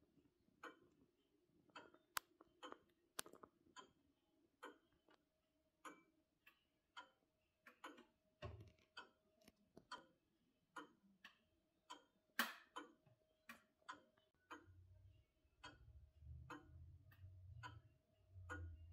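Antique English longcase (grandfather) clock ticking, a regular train of faint, sharp ticks from its escapement.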